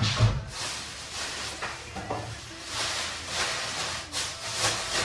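Rustling and rubbing of appliance packaging being handled, uneven scraping noise with a low thump right at the start.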